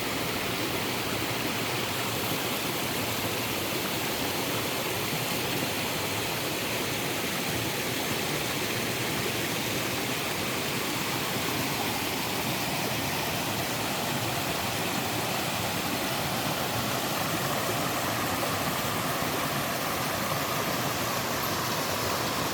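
Mountain-stream waterfall, water falling and rushing steadily.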